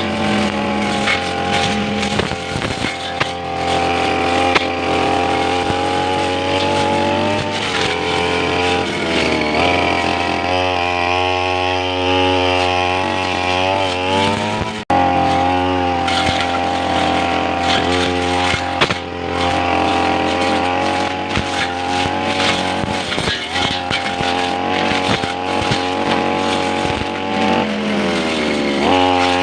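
Two-stroke brush cutter engine running hard, its pitch rising and falling as the throttle is worked while cutting grass, with a brief dropout about halfway.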